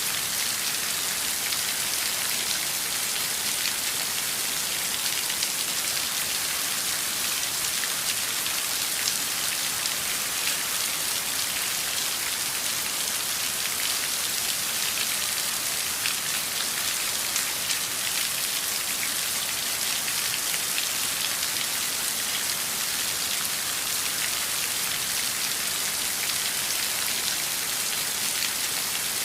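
Heavy rain falling steadily, a constant hiss of many close, fine drop impacts.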